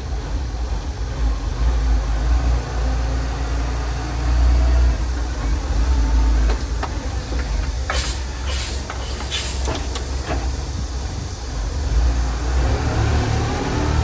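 Self-loading concrete mixer's engine running with a deep, steady rumble as the machine drives. Several short, sharp noises come in a cluster a little past the middle, and the engine revs rise near the end.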